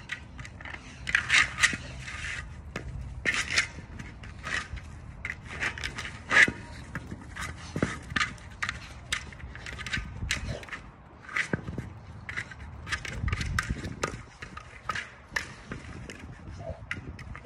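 A large American Bully dog pushing and pawing a ball across dry grass and dirt. The ball rolls and the paws scrape, giving irregular scuffs, crunches and knocks.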